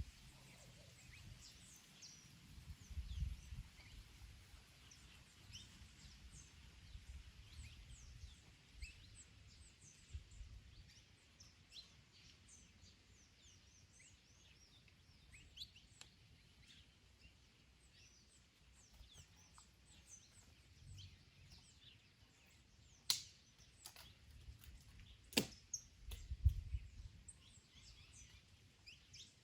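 Several small songbirds chirping and twittering continuously, faint, with low rumbling gusts of wind on the microphone now and then. Two sharp clicks sound near the end.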